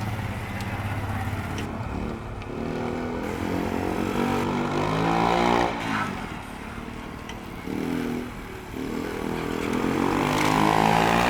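Motorcycle engine revving up and falling back again and again through tight slow-speed turns of a gymkhana course. The pitch climbs to a peak about six seconds in and drops sharply, dips again a couple of seconds later, then climbs again near the end.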